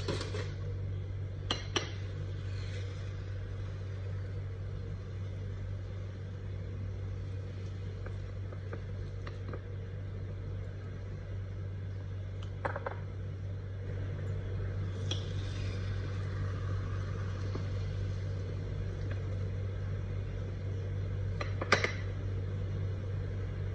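A few light clinks and knocks of dishes and an ice-cream mould being handled, spread far apart and the last one the loudest, over a steady low hum.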